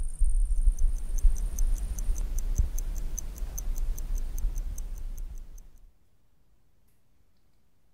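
Rapid, evenly spaced high-pitched ticking, about five ticks a second, over a low rumble. Both cut off about six seconds in, leaving near silence.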